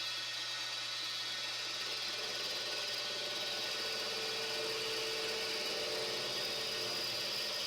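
Metal lathe running steadily: an even motor hum and whine with several held tones, a mid tone standing out about four to six seconds in.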